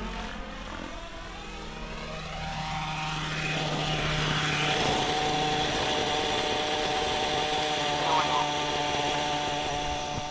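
Nitro-engined 700-size RC helicopter, its glow engine and rotor running with the pitch sliding in the first few seconds, then holding a steady pitch with the helicopter on the ground.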